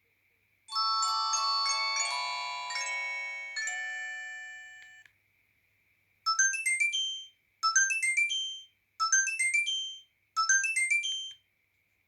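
JWD S300 mobile phone's built-in ringtones playing through its speaker. First comes a polyphonic melody of overlapping notes that fades out over about four seconds. After a short pause a second ringtone starts: a quick rising run of high notes, repeated four times.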